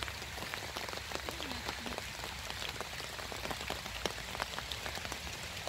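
Rain falling steadily, with many small, sharp drop ticks throughout.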